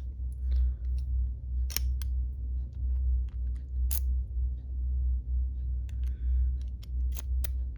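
A dimple key clicking and scraping in an aluminum safety padlock as it is inserted, turned and worked. There are a handful of sharp metallic clicks with faint ticks between them, over a steady low hum.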